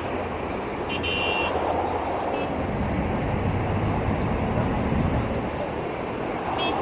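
Road traffic passing outdoors: a steady hiss of tyres and engines with a low rumble that swells slightly in the middle, and a brief high-pitched squeak about a second in.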